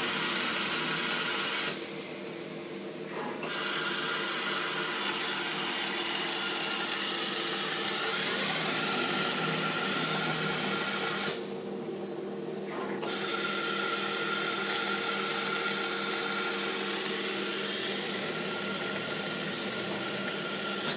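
Automatic lathe-type roll slitter running: a spinning vinyl tape roll is sliced by a circular blade, giving a steady hiss over a machine hum. The hiss stops twice, for about two seconds each, near the start and about halfway, while the hum carries on.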